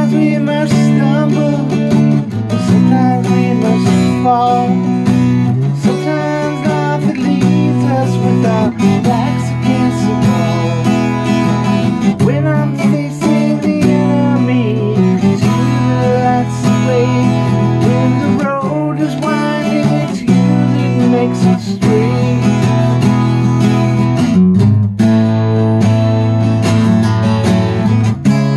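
Acoustic guitar playing an instrumental passage: chords strummed steadily, with a wavering melody line over them.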